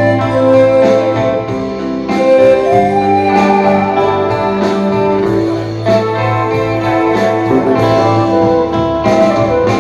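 Instrumental music: long held notes over a steady bass, with a melody line moving above them.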